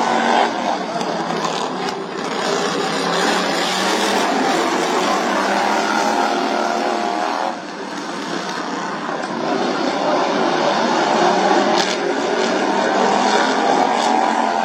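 Racing lawnmower engines running at high revs, the engine note rising and falling throughout.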